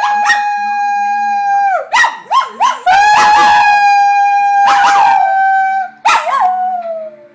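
Maltipoo howling: a long steady howl, then a few short rising yips about two seconds in, a second long howl, and a last howl that slides down in pitch and stops near the end.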